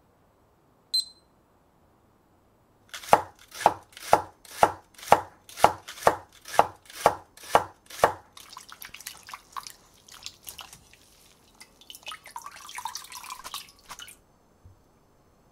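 A digital kitchen timer gives one short high beep. Then a kitchen knife chops green onion on a wooden cutting board, about eleven sharp, even strokes at roughly two a second, followed by lighter scattered taps. Near the end comes a short rustling, watery noise as the chopped onion is soaked in a mesh sieve in a bowl of cold water.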